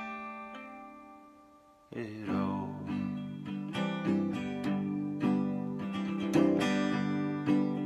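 Solo acoustic archtop guitar with a capo: a chord rings out and fades for about two seconds, then strummed chords start again at a steady pace of about two strums a second.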